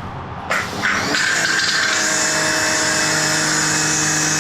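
Pressure washer motor and pump starting up about half a second in, rising quickly in pitch, then running at a steady high whine.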